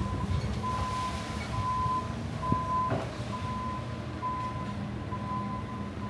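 A vehicle's reversing alarm beeping at a steady pitch, about one beep a second, over the low rumble of an engine and traffic.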